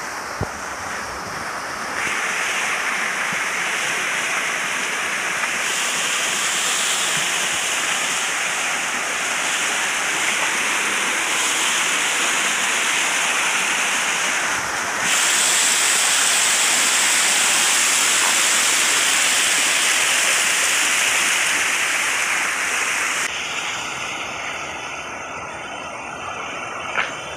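Stream water pouring over rocks in small waterfalls and cascades: a steady, loud rushing. It grows louder about halfway through, then turns quieter and duller about 23 seconds in.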